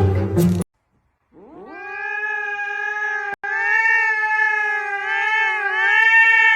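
A snatch of music cuts off, and about a second later a cat yowls in one long drawn-out call. The call rises at the start, holds a steady, slightly wavering pitch, and drops away at the end.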